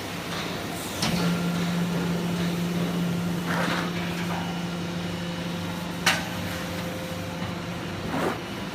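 Baling machine running with a steady hum that starts with a knock about a second in and stops with another knock near the end, with a sharp click in between.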